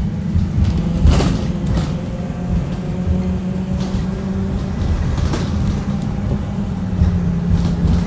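Cabin sound of a 2018 Blue Bird Vision school bus under way: steady engine and road rumble with a low drone. A few sharp knocks come through it, the loudest about a second in.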